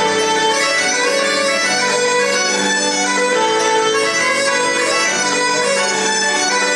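Live traditional folk band playing a tune: bagpipes played seated carry the melody over their steady drone, with fiddle and keyboard accompaniment.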